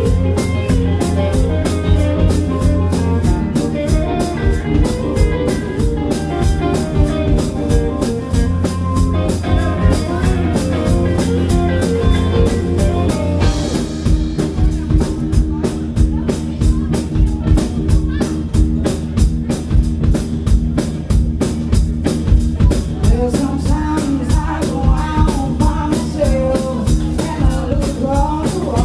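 Live band playing: electric guitars, bass guitar and drum kit with a steady beat, the chord and bass line changing about halfway through.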